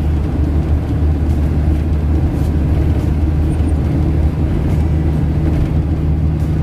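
A vehicle driving at steady speed: a continuous low engine and road drone with no breaks or changes.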